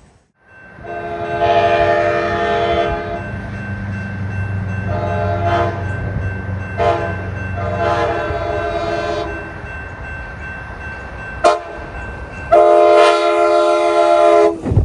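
Amtrak Pacific Surfiner locomotive's multi-chime air horn sounding a horn show: a long blast, a run of shorter blasts, a quick toot, then a final long blast near the end. The train's low rumble runs under the first half.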